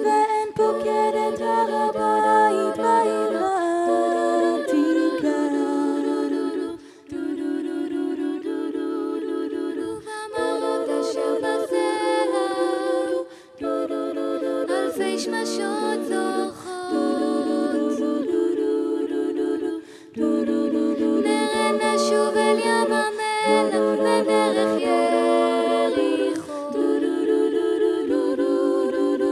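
All-female a cappella jazz vocal ensemble singing in close harmony, several voices holding chords that shift every second or so, with short breaks between phrases.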